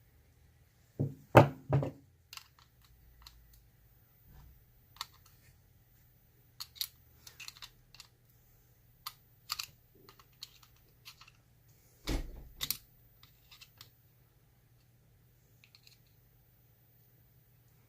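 Irregular metal clicks and knocks from small tools working on an oval euro lock cylinder, prying at the clip that holds its back on. There are two heavier clusters of knocks, about a second in and about twelve seconds in.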